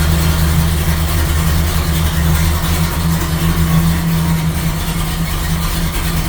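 Pontiac V8 breathing through a tunnel ram with two four-barrel carburetors, running at a steady idle.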